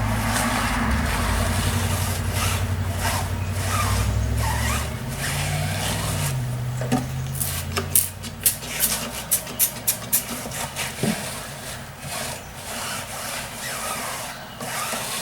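Hands rubbing tire shine into the rubber of a dirtbike tire, a continuous rubbing, scraping sound. A low hum runs under the first half, and a run of sharp clicks comes in the middle of the clip.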